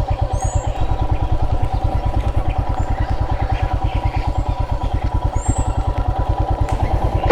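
Royal Enfield Himalayan's single-cylinder engine idling with a steady, rapid thump. A bird chirps briefly twice.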